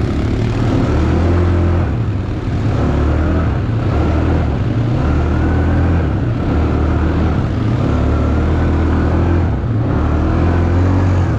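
ATV engine running, its note rising and falling about every second or so as the throttle is worked.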